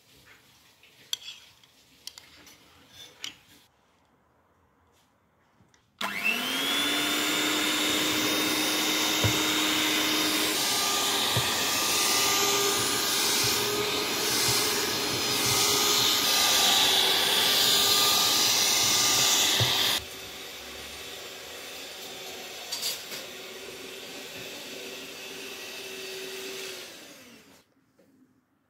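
A spoon clinks a few times against glass dishes. Then an electric hand mixer starts with a rising whine and runs steadily, kneading flour, eggs, butter and milk into dough. Its sound drops to a quieter level for the last several seconds before it stops.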